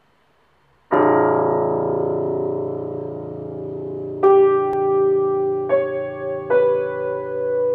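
Slow piano music: a chord struck about a second in and left ringing, then three single notes struck one after another over it.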